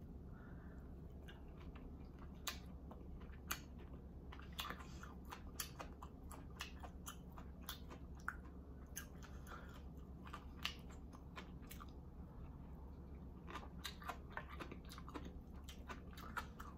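Close-miked chewing of food, with many short sharp clicks and crunches from the mouth.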